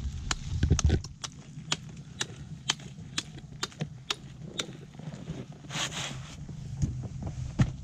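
An axe chopping creek ice: sharp, regular strikes about two a second, with a brief scrape a little before the six-second mark.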